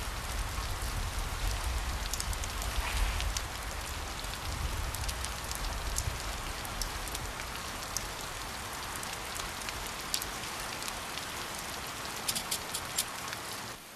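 Steady hiss with scattered light ticks and crackles, a low rumble under it in the first few seconds; it all cuts off suddenly near the end.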